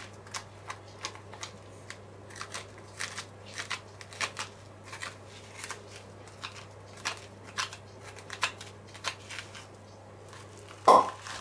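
Spoon scraping seeds and stringy fibres out of a raw spaghetti squash half: a run of short, irregular scrapes and crunches, with a louder knock near the end.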